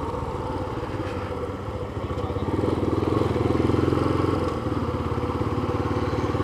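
Yamaha FZ25 motorcycle's single-cylinder engine running while riding along a street, getting louder about two seconds in as it pulls harder, then easing off a couple of seconds later.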